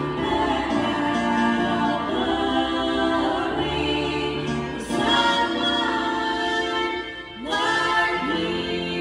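Two women singing a gospel song into microphones, accompanied by a keyboard, with a short break in the sound a little after seven seconds.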